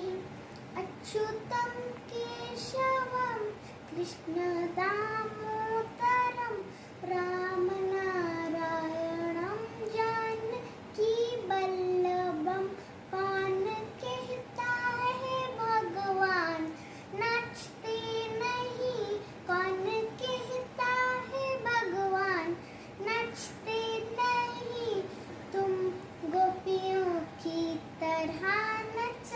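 A young girl singing a devotional song to Krishna, unaccompanied, in phrases with long held and bending notes and short breaths between them.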